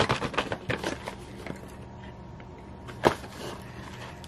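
Small cardboard mini-pie box and its wrapper being handled and opened: a quick run of small crackles and clicks in the first second or so, then quieter rustling with one sharp click about three seconds in.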